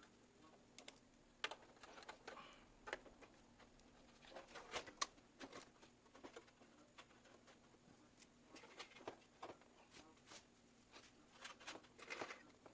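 Faint, scattered clicks and rustles of hands handling PC parts and cables, with the sharpest click about five seconds in.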